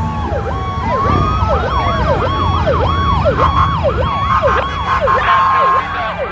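Several emergency-vehicle sirens sounding at once as the parade's police and fire vehicles pass: fast overlapping up-and-down wails mixed with a steady repeating tone, over the low rumble of engines. In the first second a slower siren glides down in pitch and fades.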